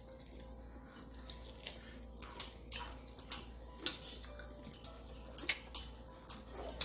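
Eating instant noodles with chopsticks from a plate: irregular sharp clicks and taps of the chopsticks against the plate, mixed with mouth sounds as the noodles are eaten, coming more often in the second half.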